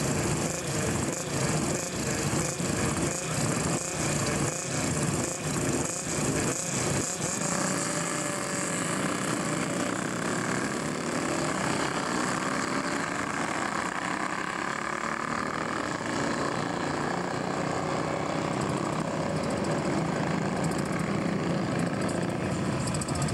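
A grid of classic racing motorcycles revving in short, uneven bursts on the start line, then accelerating away together, their engine notes rising and falling in pitch.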